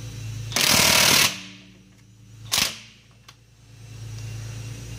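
Cordless impact wrench hammering on a seized lug bolt: a loud rattle of just under a second, then a second short burst about two and a half seconds in.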